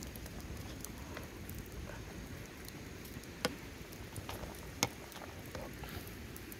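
Open wood fire crackling under a pot at the boil, a steady low rush broken by scattered sharp pops, the two loudest a little past the middle.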